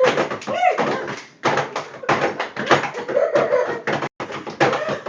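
Rapid, irregular knocks and thumps, several a second, with a couple of short vocal squeals between them.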